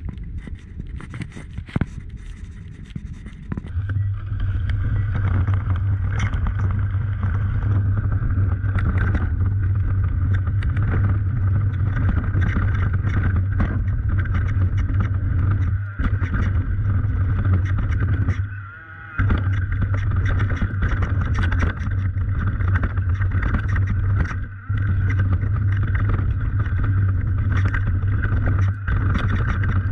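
An engine running at a steady speed, a low hum that comes in about four seconds in. It drops away briefly a few times. Before it comes in there are scattered clicks and rattles.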